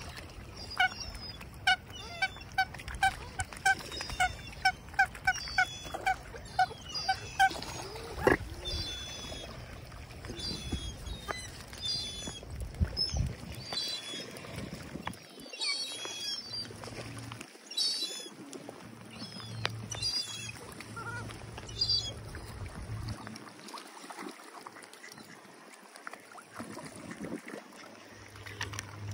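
Water birds calling at a feeding spot: a quick regular run of short honking calls, about two a second, for the first seven seconds or so, then scattered higher-pitched calls.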